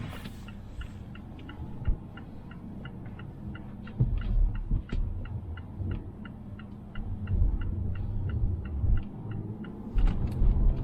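Car turn-signal indicator ticking steadily inside the cabin of a 2020 Mazda Atenza, about four even clicks a second, over low tyre and road rumble that swells with bumps about four and seven seconds in.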